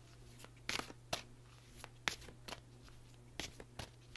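Scattered soft clicks and rustles of a deck of mudra cards being handled and shuffled, a few short sounds at irregular intervals over a low steady hum.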